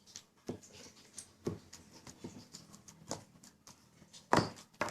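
Homemade slime being mixed and handled: scattered sticky clicks and small knocks, with one louder knock near the end.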